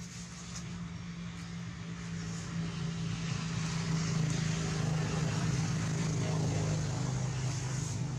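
A motor engine running steadily with a low hum, slowly getting louder.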